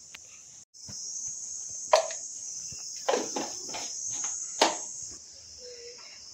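Kitchen utensil clatter: a handful of sharp knocks and taps from plastic spice containers and a spoon being handled at the stove. A steady high-pitched hiss sits under them.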